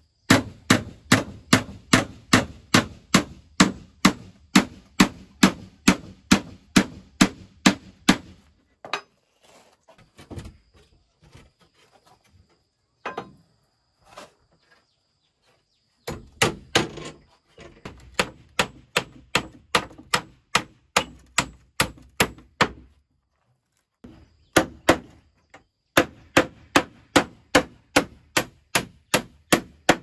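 Hammer blows in quick, even runs of about three strikes a second, stopping twice for several seconds with a few scattered knocks between the runs.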